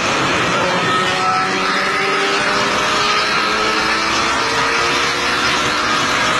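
Motorcycle engine running steadily at highway speed, its note drifting slightly up and down in pitch, under a constant loud rush of wind on the microphone.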